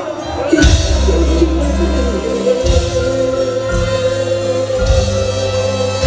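Live band music with a male singer, bass and drums, with one long note held steady from about a second and a half in.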